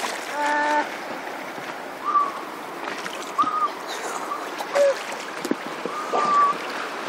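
Sumbisori: the short, high whistling exhalations that haenyeo (Korean women free divers) make as they surface and release a held breath, heard about three times over sea water lapping and splashing. The whistle is the sign that a diver has come up and is breathing safely.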